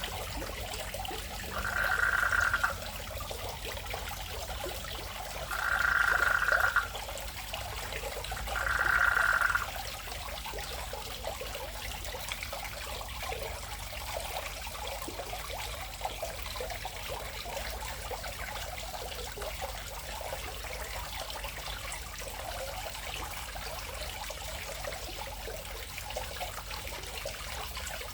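A frog calling three times in the first ten seconds, each call about a second long, over steady trickling water.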